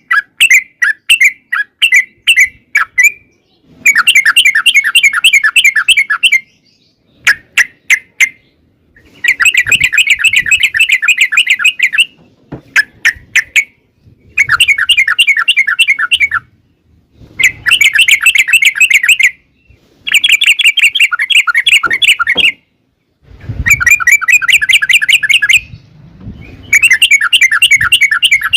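Yellow-vented bulbul (trucukan) singing its rapid rolling song: bursts of quick repeated notes, each lasting two to three seconds, come one after another with short pauses between them.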